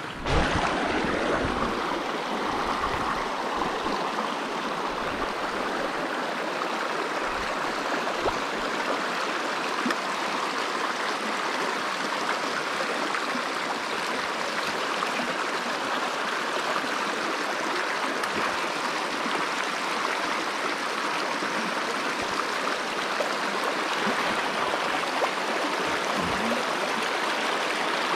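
Small mountain stream rushing steadily over rocks, close by. There is a low bump just after the start and a few fainter ones later.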